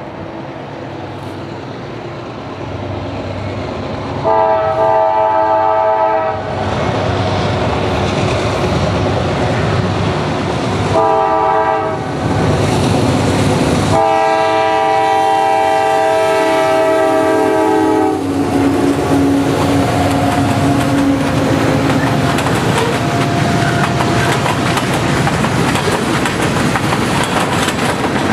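CSX diesel freight locomotive's air horn sounding a chord in three blasts, long, short, long, over the growing rumble of the approaching diesels: a grade-crossing warning. From about two-thirds of the way in, the freight cars roll past with a clickety-clack of wheels over rail joints.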